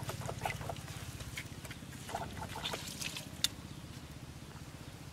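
Puppy giving short, faint squeaky whimpers while it is rubbed down with a wet cloth, with small wet rubbing and dripping sounds. A low hum underneath fades away over the first couple of seconds.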